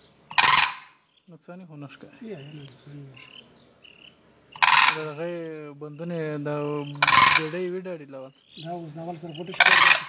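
Demoiselle cranes calling: four loud, harsh calls about two to three seconds apart, with softer, lower, wavering calls between them. A steady high insect buzz runs behind.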